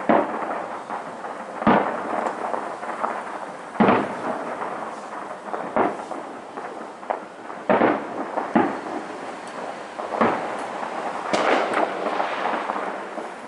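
Fireworks bursting: a string of sharp bangs every second or two, with crackling and rumbling between them.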